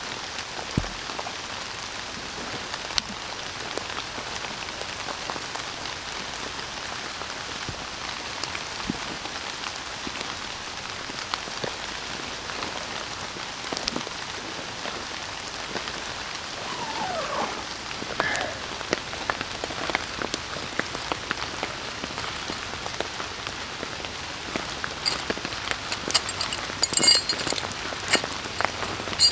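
Steady rain falling, with many scattered sharp drop ticks. Near the end there are a few louder clicks and rustles.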